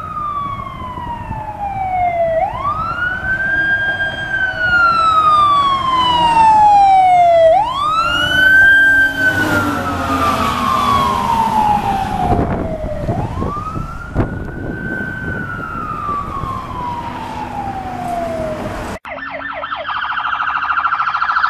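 Fire engine siren wailing as the engine approaches and passes close by. The siren rises quickly and falls slowly, three cycles about five seconds apart, and the engine and road noise are loudest midway. Near the end it cuts abruptly to music.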